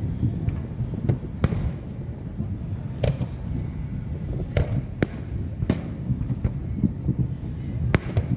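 Distant aerial fireworks shells bursting: about eight sharp, irregularly spaced bangs, each with a short echoing tail, over a steady low rumble.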